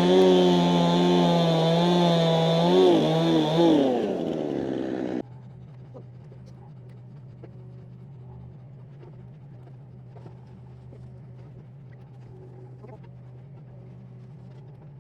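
Chainsaw running at high revs, dipping in pitch as it bogs briefly in the cut. It drops back to idle and cuts off suddenly about five seconds in, leaving a low steady engine hum with a few small knocks.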